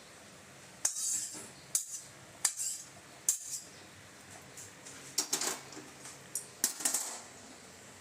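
Metal cookware and a utensil clanking and scraping against each other in a series of sharp clinks: about one a second at first, then a quick cluster a little past the middle.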